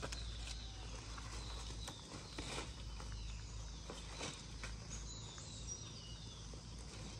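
Outdoor background noise: a steady low hum with a few faint high chirps and some light knocks scattered through.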